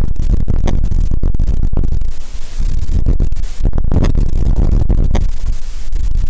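Strong wind buffeting the camera microphone: a loud, low rumble with crackles and brief dropouts.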